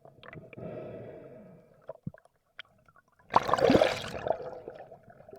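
Water gurgling and sloshing around a swimmer, with a loud rush of water about three and a half seconds in.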